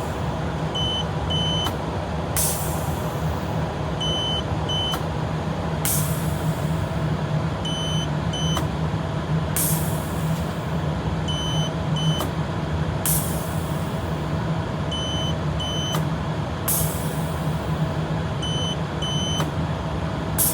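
Continuity tester beeping in short high pairs as the reed switch makes contact, with a sharp hiss of compressed air about every three and a half seconds over a steady low machine hum.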